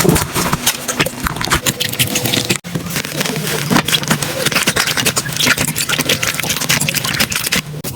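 Slime being squeezed, poked and pressed by hand, giving a dense run of crackling clicks and wet pops, with a brief break about two and a half seconds in.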